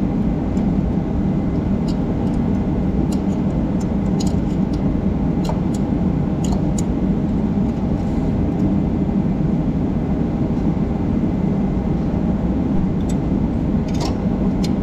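Steady loud drone of a running machine, unchanged throughout, with scattered light metallic clicks from pliers working at the radiator's bolts.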